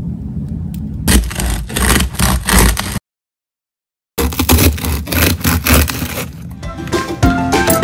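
A serrated bread knife sawing through the crust of a sourdough loaf: rough, crackling scraping strokes in two runs, broken by a second of silence. Before them a low steady rumble; music comes in near the end.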